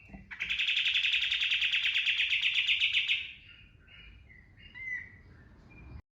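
Kapas tembak bulbul singing: a loud, rapid trill of about three seconds (the 'tembakan', the burst this bird is kept for), then softer scattered chirps.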